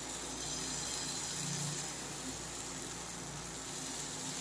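Batter sizzling softly and steadily on a hot, lightly oiled pan over a low gas flame.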